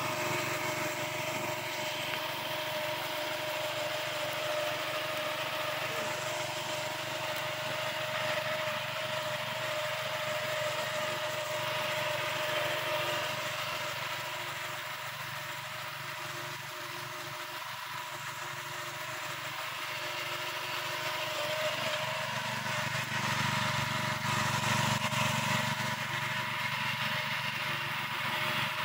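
Small engine of a Kamco walk-behind reaper running steadily with a constant pitch while the machine cuts through standing rice. It eases off a little midway and grows louder again later on.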